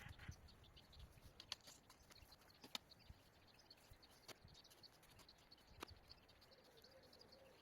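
Near silence: faint outdoor ambience with faint high chirping and a few soft clicks.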